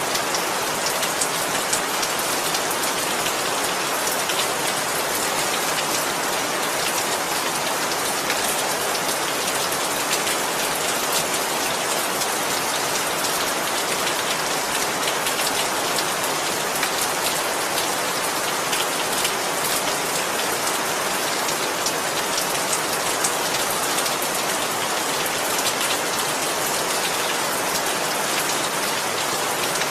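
Steady rain falling, an even dense hiss of rain on a surface with many small drop ticks and no rise or fall.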